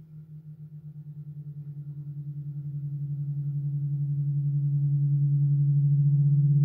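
Halldorophone feedback tone from the D-string interfering with a sympathetic string: a steady low drone with a rapid, even beating pulse, swelling steadily louder, with a fainter upper tone gliding slowly upward.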